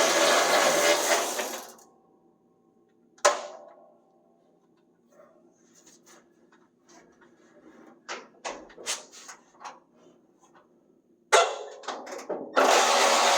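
A power tool's motor running steadily, winding down within the first two seconds and starting up again near the end. In between come a sharp metallic knock, scattered clicks and rattles of parts being handled, and a second loud knock.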